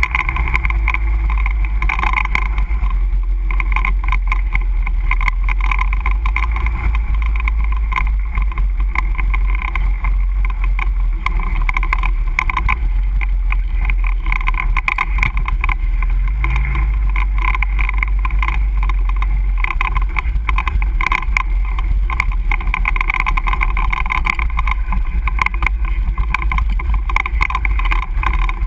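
ATV engine running steadily as the quad rides over a rough dirt trail, with a constant low rumble.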